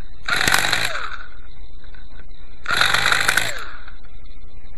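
Small nitro glow engine of a Quickie 18 RC helicopter being cranked and firing briefly twice, each burst of running falling away in pitch as it fails to catch: a hard-starting engine that tries to start but won't keep running.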